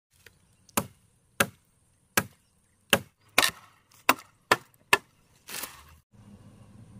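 A machete chopping into a small standing tree trunk: about eight sharp strikes, roughly two a second, then a brief rustle near the end.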